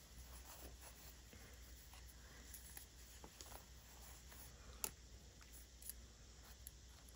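Near silence, with faint rustles and small clicks of silk ribbon being twisted and folded into a bow by hand; one slightly louder click about five seconds in.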